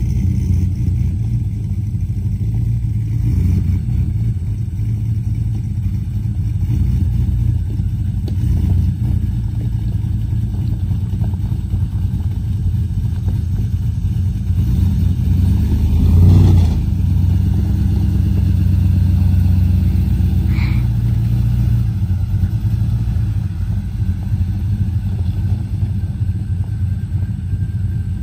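Lifted Chevrolet pickup truck's engine idling with a deep, steady exhaust rumble, swelling briefly louder about sixteen seconds in. A short high chirp sounds about twenty seconds in.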